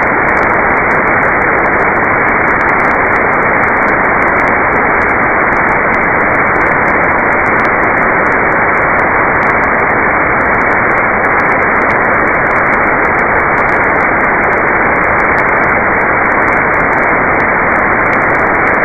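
Loud, steady static hiss from a weather radio receiver, with no voice or tone in it: the broadcast signal has dropped out, leaving only receiver noise.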